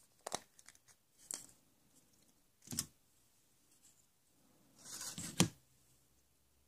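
Several short, sharp scraping clicks a second or so apart, with a longer rustling scrape and a sharp click about five seconds in, the loudest part.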